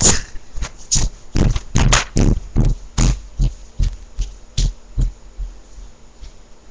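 Quick footsteps thudding on a floor, about three a second, moving away and fading out about five seconds in.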